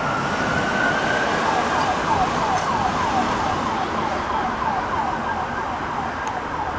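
Police SUV siren (Ford Police Interceptor Utility) finishing a slow rising wail, then switching about a second and a half in to a fast yelp of about four falling sweeps a second, slowly fading.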